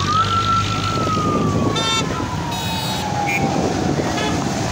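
A vehicle siren at the top of its pitch, holding for about a second and then slowly falling as it winds down, over the steady hum of passing traffic. Short horn beeps sound about two and three seconds in.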